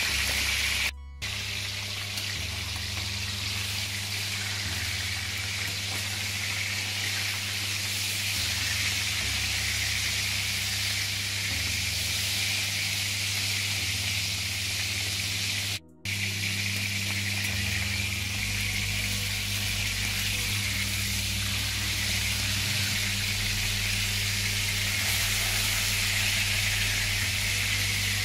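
Two pieces of larded beef searing in hot lard in a stainless-steel braising pan: a steady sizzle of bubbling fat, with a low hum underneath. The sound drops out briefly about a second in and again about sixteen seconds in.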